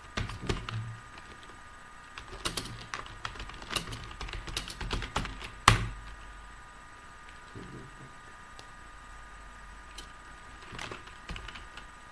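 Typing on a computer keyboard: a quick run of key clicks ending in one loud keystroke about halfway through, then a few scattered key presses near the end.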